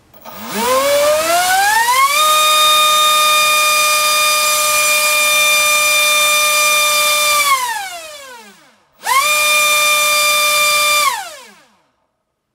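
Black Mantis 2847 3900kv inrunner brushless motor spinning a small 4.1x4.1 propeller on a thrust stand at full throttle. A whine rises over about two seconds as it spools up, holds steady for about five seconds, then winds down. A second, shorter burst of about two seconds follows and winds down near the end.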